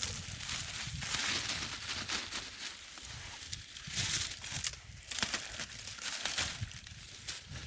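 Rustling and crackling of dry leaves and brush that rises and falls in surges, over a low rumble of wind on the microphone.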